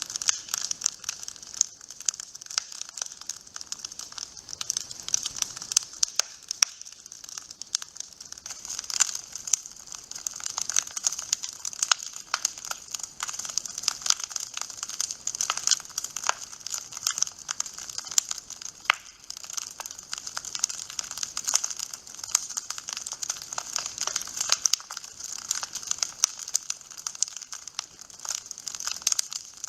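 Wood fire crackling in a fireplace: a dense, continuous run of small pops and snaps over a steady hiss.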